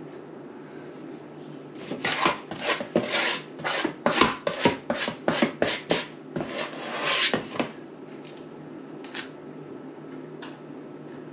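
Quick rubbing and scraping strokes, about two or three a second for roughly six seconds, as a batter-coated scoop is rubbed clean at the kitchen sink.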